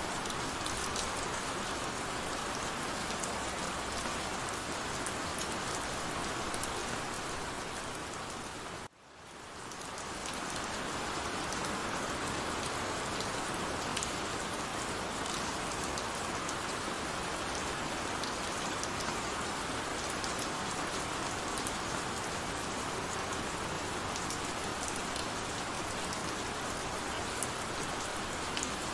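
Heavy rain falling steadily: a dense hiss with scattered sharp drop ticks. About nine seconds in it cuts out suddenly and fades back up over about a second.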